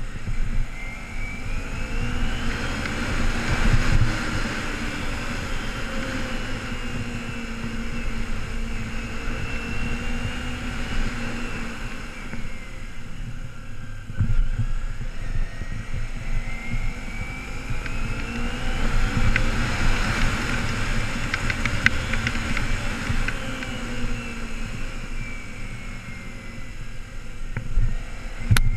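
2008 Kawasaki Ninja 250R's parallel-twin engine rising in pitch as the bike accelerates, then easing off, twice over. Wind rumbles on the helmet camera's microphone throughout.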